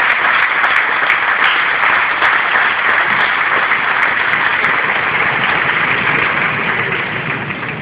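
Stadium crowd applauding steadily, the clapping dying down near the end.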